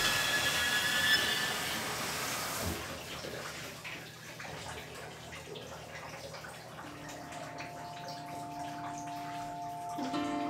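Water running as a steady hiss, under a film score: high ringing tones fade out in the first few seconds, and low held notes come in about seven seconds in, with more joining near the end.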